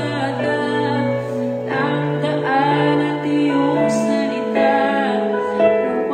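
Slow song playing: sustained instrumental chords with a sung melody over them.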